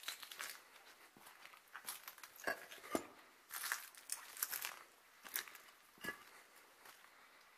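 Footsteps: an uneven series of short crackly steps that thin out and stop near the end.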